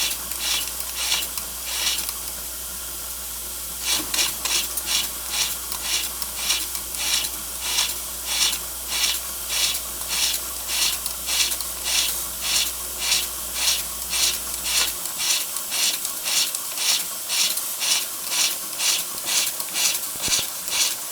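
Bing twin-cylinder oscillating toy steam engine running on its first steam-up, its exhaust puffing about twice a second over a steady steam hiss. The puffs pause for about two seconds near the start, leaving only the hiss, then pick up again.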